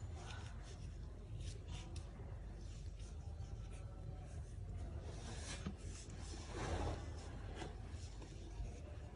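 Handling noise of crocheting: cotton yarn rubbing through the fingers and a metal crochet hook scratching as stitches are worked, in short scratchy strokes with a longer, louder rustle about six and a half seconds in, over a steady low hum.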